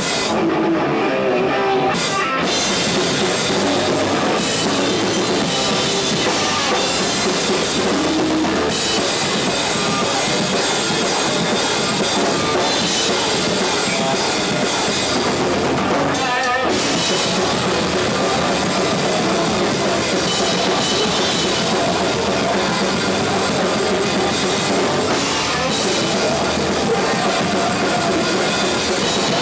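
Live hardcore punk band playing loud and fast, with drum kit, guitar and shouted vocals, the crowd yelling along at the mic. The sound is a rough, loud camcorder recording.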